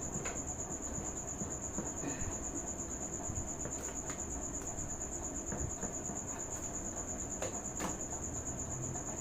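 A steady high-pitched tone runs in the background. Over it come a few faint clicks and knocks as the Royal Enfield Himalayan's clutch cover is worked loose by hand.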